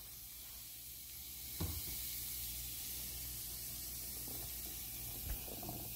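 Chopped onions sizzling steadily in hot olive oil in a frying pan, a sign the oil is hot enough. A light knock about a second and a half in.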